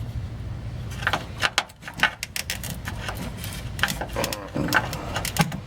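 Irregular clicks and knocks of hands working a hose loose from the top of a fuel pump assembly.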